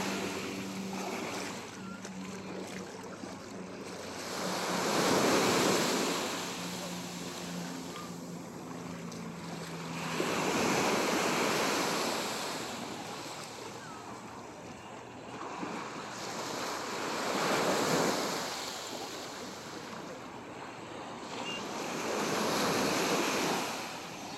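Small waves washing up onto a sandy beach, each wash of surf swelling and fading again about every five to seven seconds.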